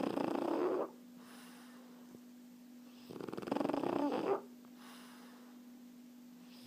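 French bulldog snoring in its sleep, typical of the breed's short, flat-faced airway. Rattling snores come about every three and a half seconds: one ends just under a second in, another runs from about three to four and a half seconds, and the next starts right at the end.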